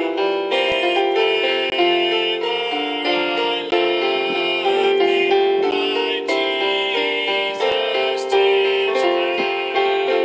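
Electric keyboard played with a piano sound, a melody over chords with notes struck in a steady flow.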